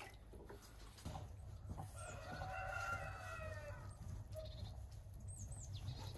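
A rooster crowing once, a call of just under two seconds that rises and falls, with a few short high bird chirps near the end.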